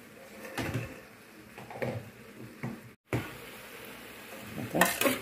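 Metal spoon stirring and scraping pieces of tripe and sausage around an aluminium pot, in a few separate strokes with a louder run of scrapes near the end. The sound drops out briefly about three seconds in.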